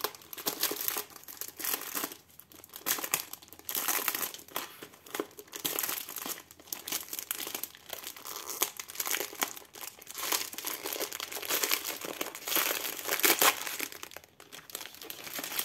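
Clear plastic film wrapped around a rolled canvas crinkling as hands handle it and peel it open at the end, in irregular bursts with short pauses.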